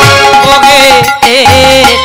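Kirtan accompaniment between verses: a melody instrument playing a sustained, wavering line over hand-drum strokes.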